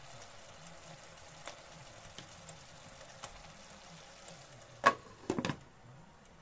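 Pork and carrots simmering in a frying pan, a faint steady sizzle with scattered small pops. About five seconds in, a glass lid is set on the pan with one clank and a short rattle.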